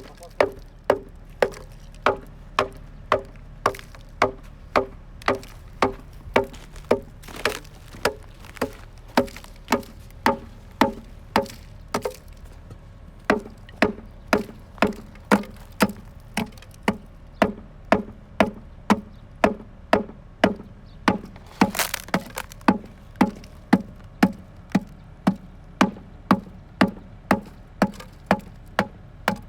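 Wood-block-like knocks in a strict, even beat, about two a second, dropping to a lower pitch about halfway through after a short pause: a percussive backing track.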